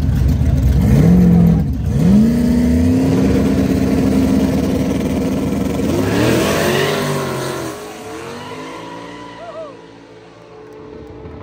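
Drag race car launching hard and accelerating through the gears, its engine pitch climbing and dipping at each gear change, then passing at full power and fading away down the strip.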